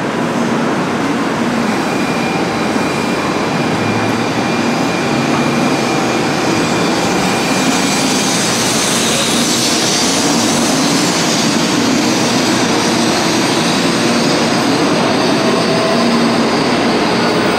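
A train moving through the station: a loud, steady rolling noise with a faint steady whine, growing a little louder partway through.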